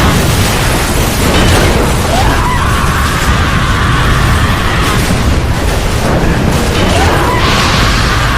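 Aftermath of a plane crash sound effect: a loud, continuous rumbling din with no pauses. Two rising wails climb and level off, one about two seconds in and one about seven seconds in.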